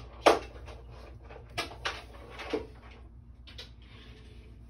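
Several sharp plastic knocks and clicks as a white PVC sink drain trap is handled and worked down at its slip nut. The loudest knock comes just after the start, with smaller ones spread through.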